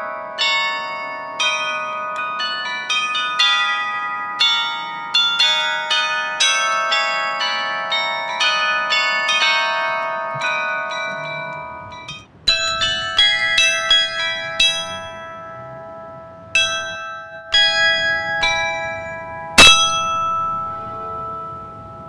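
Carillon bells struck by electric hammers, playing a tune, each note ringing on and dying away. About twelve seconds in the sound changes abruptly to a sparser string of notes over some low background noise, and one loud strike comes near the end.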